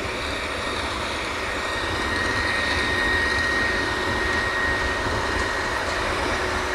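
Steady machinery noise of a working drilling rig, its engines and pumps running, with a constant high-pitched whine; it grows a little louder about two seconds in.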